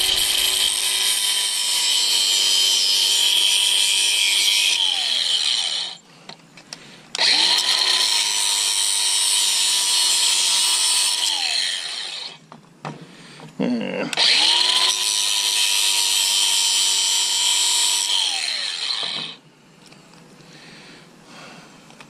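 DeWalt 20V cordless angle grinder with a cutting disc, cutting notches into a short piece of 1.5-inch ABS plastic pipe. It runs in three bursts of about five seconds each at a steady high pitch, and each time it winds down as the trigger is let go.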